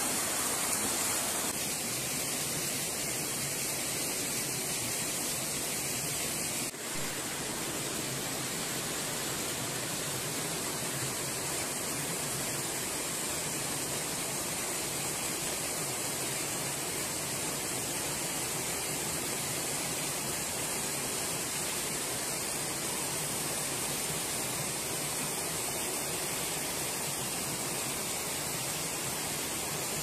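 Mountain river rushing over rocks and small cascades, a steady rush of water that breaks off for a moment about seven seconds in.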